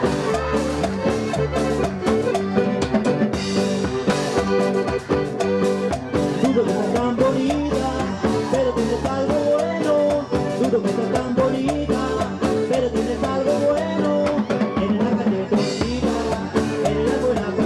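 A live band playing an upbeat Latin dance tune: button accordion, electric bass and guitar over a drum kit keeping a steady beat.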